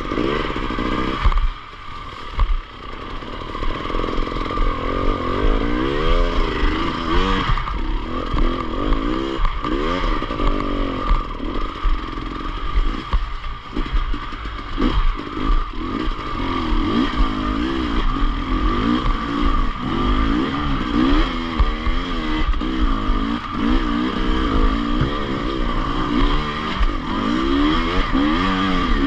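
Enduro motorcycle engine running while being ridden, its revs rising and falling constantly, with a short drop in level about two seconds in.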